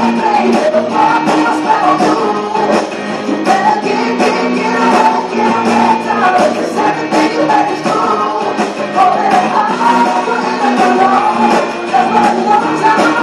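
A song with a singing voice over a steady beat.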